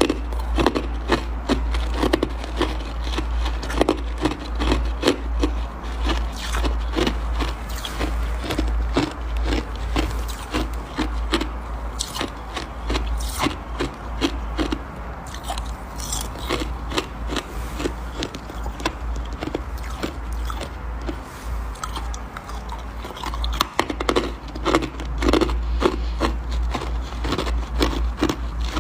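Close-miked crunching of soft, powdery freezer frost: a dense, irregular crackle that thins out briefly around the middle.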